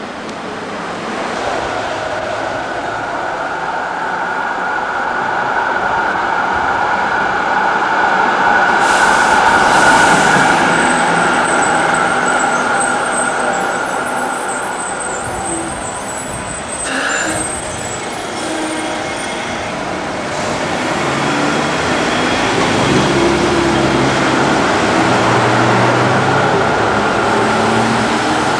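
Electric trams running with street traffic: a steady high whine through the first half, rising to a tram passing close about ten seconds in, then lower road-traffic engine noise in the later part.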